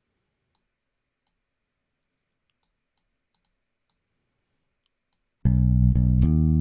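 Near silence with a few faint clicks, then about five seconds in a loud run of low, pitched instrument notes from DAW playback starts abruptly.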